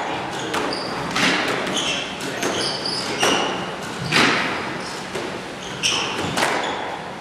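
Squash rally: the ball cracking off racquets and the walls about once a second, each hit ringing in the enclosed court, with short high sneaker squeaks on the wooden floor between the hits.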